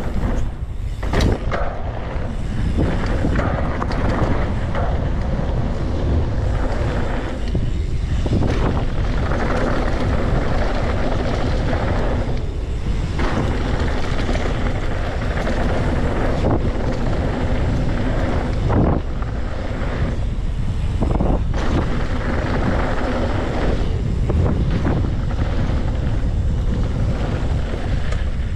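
Wind buffeting the handlebar-mounted camera's microphone over the rumble of knobby mountain bike tyres on a loose dirt trail at speed, with a few sharp knocks from bumps and several brief quieter moments.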